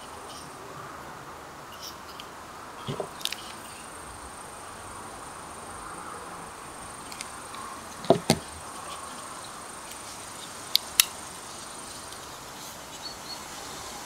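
Tools of a folding multi-tool pocket knife clicking as they are handled and snapped open and shut: a few sharp metallic clicks, the loudest coming in two quick pairs in the second half, over a steady faint hiss.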